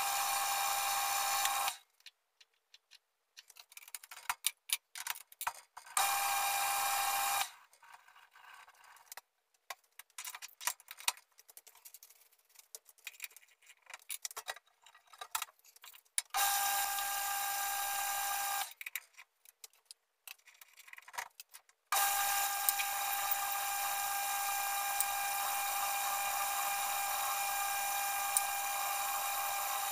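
Metal lathe spinning with a steady whine, switched on and off four times, the last run the longest at about eight seconds. Between runs come scattered clicks and taps of tools and chuck being handled.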